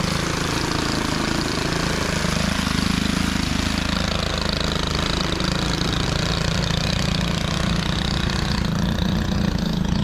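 Gas hedge trimmer's small two-stroke engine running steadily while cutting through a cedar hedge.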